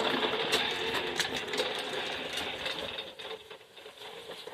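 Toy bubble lawnmower's small motor whirring with a mechanical clatter as it blows bubbles, growing fainter toward the end.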